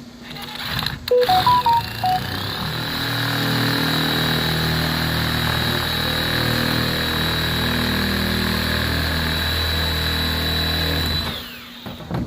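Electric drill driving double-cut sheet-metal shears through furnace sheet metal. A few loud knocks come first, then the motor spins up with a rising high whine about two seconds in, runs steadily under load, and winds down near the end.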